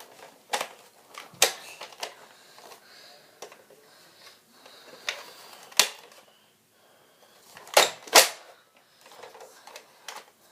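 Plastic mechanism of a Buzz-Bee toy dart gun clicking and clacking as it is handled and worked, with a few scattered sharp clicks and the two loudest close together about 8 seconds in. The gun keeps jamming.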